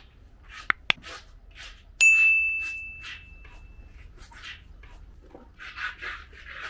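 A single clear, bell-like metallic ding about two seconds in that rings out and fades over about two seconds. Around it are short, repeated scratchy strokes, and there are two sharp clicks near the start.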